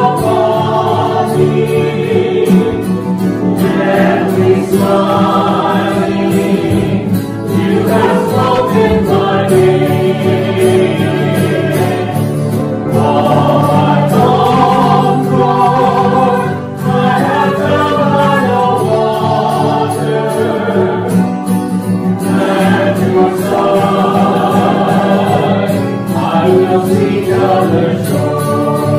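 A choir singing a Christian hymn as sacred music during Communion.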